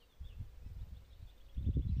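Wind buffeting the microphone in uneven gusts, heavier from about one and a half seconds in, with faint bird twittering.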